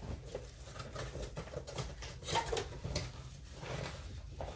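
Light rustling and scratching with scattered small clicks and taps: a cardboard delivery package being handled and opened by hand.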